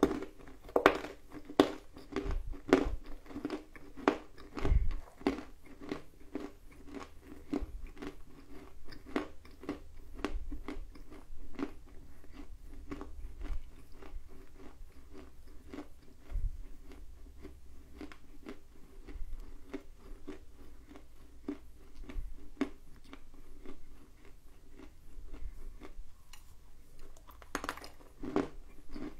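A person biting and chewing dry lumps of edible clay: a steady run of small, crisp crunches, busiest at the start, with a fresh burst of crunching near the end.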